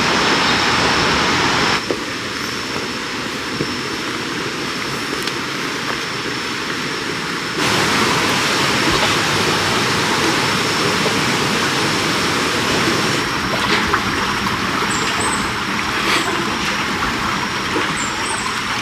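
Rushing water of a jungle stream or waterfall, a steady dense hiss that drops abruptly about two seconds in and comes back louder near eight seconds. A thin steady high tone runs over it throughout.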